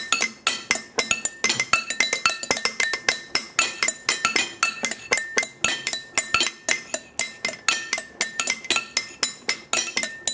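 Background music: a quick, even run of bright, high-pitched plucked or struck notes.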